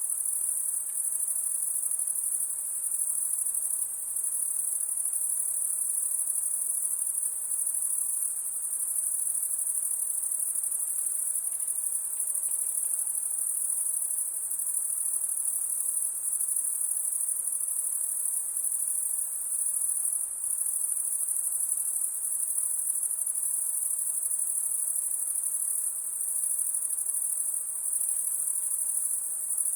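A chorus of crickets chirping steadily and continuously, a dense high-pitched trill with no breaks.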